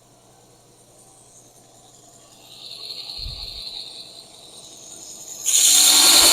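A soft hiss about midway, then a belt sander grinding a steel knife blank, starting abruptly and loud about five and a half seconds in.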